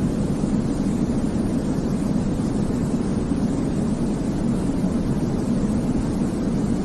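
Steady baby-sleep white noise: an even, unchanging rush weighted toward the deep end, with no breaks or events.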